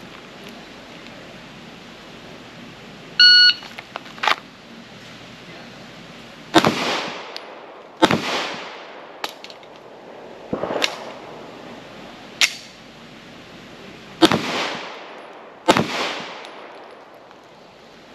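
A shot-timer beep, then a string of 9mm pistol shots about one to two seconds apart, six of them loud, each trailing off in a short echo.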